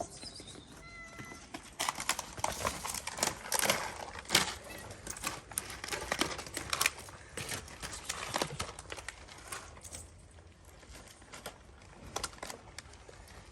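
A kitten meowing briefly, then several seconds of quick clicks and crackles as cat food is handed out to the kittens; it thins out near the end.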